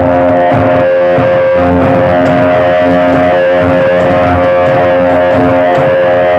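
Loud music with guitar prominent, played through miniature sound-system speakers during a sound check.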